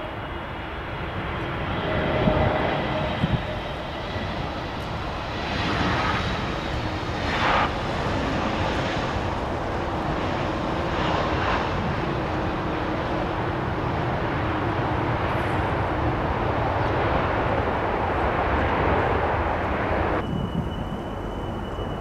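Passenger airliner's engines running loud and steady: a wide rush of noise with faint steady whining tones on top. The sound changes abruptly near the end.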